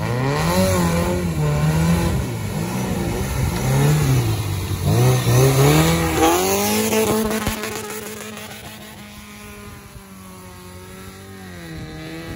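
Off-road car's engine revving up and down again and again, about once a second, then held at a steady pitch from about halfway through. It grows fainter, then louder again near the end.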